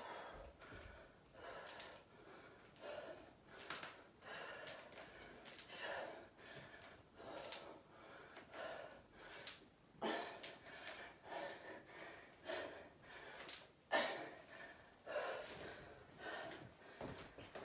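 A woman breathing hard from exertion during a set of dumbbell squats: sharp, noisy breaths about once a second, with a couple of harder gasps in the second half.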